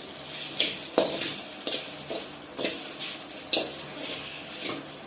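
A spatula scraping and stirring grated coconut as it dry-roasts in a pan, in repeated strokes about once a second over a soft hiss.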